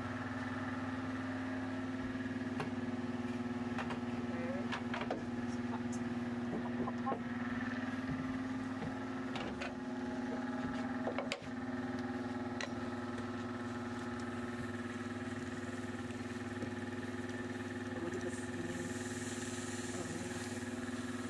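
A steady machine hum runs throughout, with scattered metal clanks and knocks as clamps and steel plates are handled. Near the end, a hiss comes in as steam rises off the hot plates while they are cooled.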